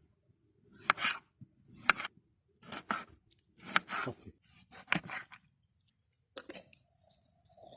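Knife cutting vegetables on a board, about one cut a second: each stroke slices through and ends in a sharp tap on the board, with a softer scrape near the end.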